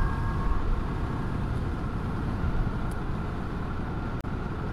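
Steady wind rush and tyre noise from riding a Sur-Ron Storm Bee electric motorbike along a paved road. There is no engine sound, only a faint high whine from the electric drive that fades out within the first second.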